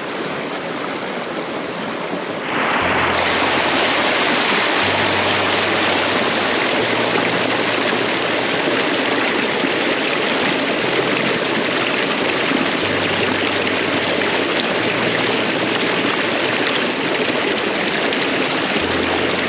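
Mountain creek rushing steadily over rocks, suddenly louder about two and a half seconds in and then holding steady.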